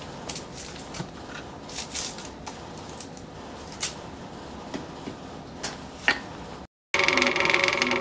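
Light clicks and clatter of pipette and plasticware being handled on a lab bench. Near the end, after a short cut, a magnetic stir plate's motor runs with a steady hum, spinning a stir bar in a bottle of solution.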